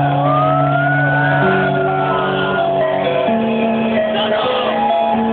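Electronic dance music played loud over a club system: held synth chords that change every second or two, with no strong beat. The crowd shouts and whoops over it, and a rising, falling whistle-like glide comes early. The recording is dull and muffled, with nothing in the high treble.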